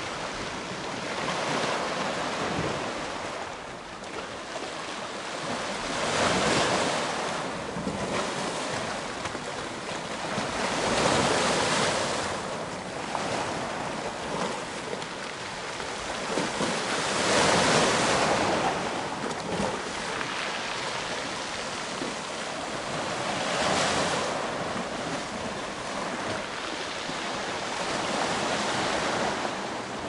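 Choppy sea waves breaking and washing into a rocky, pebbly cove, swelling into a loud surge about every five to six seconds.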